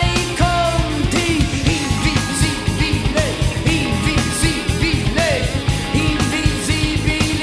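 Rock song playing: guitar and drums with a sung vocal line, at a steady beat.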